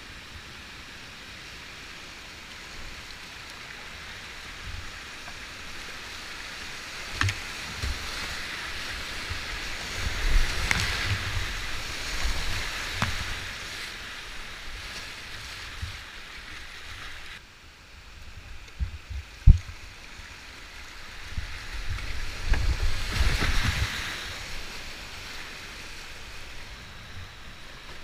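Whitewater rapids rushing around a kayak, swelling twice as the boat runs through the white water, with splashes and a few sharp knocks from paddle and hull; the sound drops away abruptly a little past halfway, and the loudest knock comes a couple of seconds after.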